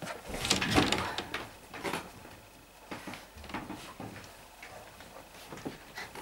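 Airedale Terrier puppies scuffling as they wrestle on a blanket in a wooden pen: rustling with scattered small knocks and clicks, loudest about a second in.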